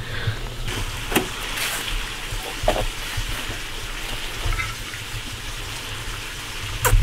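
A steady hiss of background noise with a low hum, broken by a few short, light clicks and taps from the grilled banana being handled on a plastic plate.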